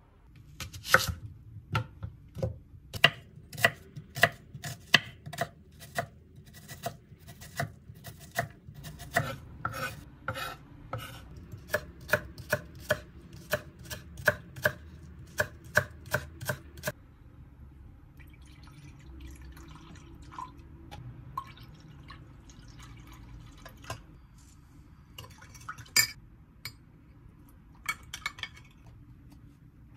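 Kitchen knife chopping on a cutting board in steady strokes, about two a second, for more than half the time. After that come quieter sounds of handling and light clatter, and a few single knocks near the end.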